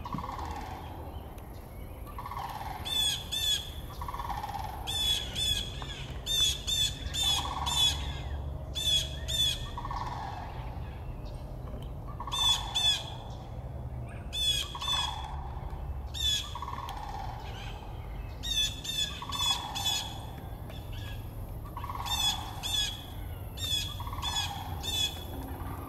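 Blue jay scolding a perched red-tailed hawk with harsh, repeated 'jay' calls in quick runs of two to five, typical of a jay mobbing a raptor. A lower, falling sound repeats about every two seconds beneath the calls.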